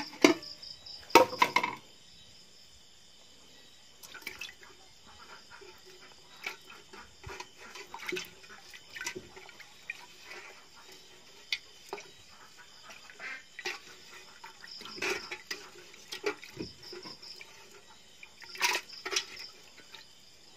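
A hand sloshing and splashing water in an aluminium basin while washing fish, with irregular small splashes and knocks against the metal and a louder burst about a second in. Crickets chirr steadily behind.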